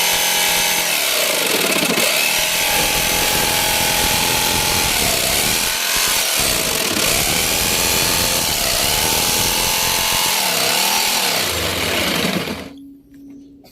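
Electric jigsaw cutting a hole, its motor running loud with the pitch dipping and recovering several times as the blade bites, then switched off near the end.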